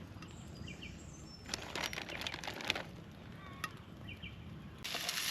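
Quiet outdoor ambience with scattered campfire crackles and a few short bird chirps. Near the end it cuts suddenly to the steady sizzle of food frying.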